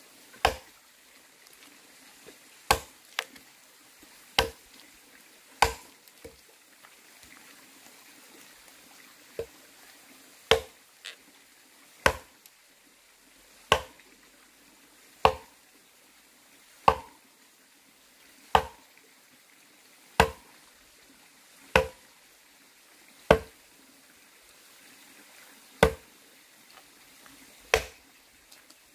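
An axe chopping into a wooden log, single sharp blows about every one and a half seconds, with a pause of a few seconds after the first handful of strikes. The blows cut out the top of the log, hollowing it into a trough.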